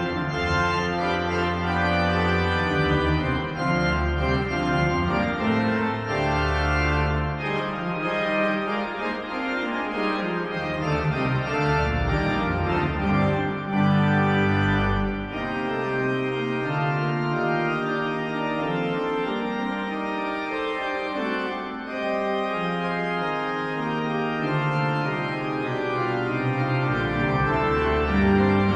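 Pipe organ playing slow held chords, with deep pedal notes that drop out and come back several times.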